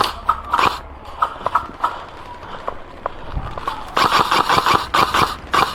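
Airsoft electric guns firing: scattered sharp clacks and short bursts, then about four seconds in a longer rapid run of shots, the loudest part.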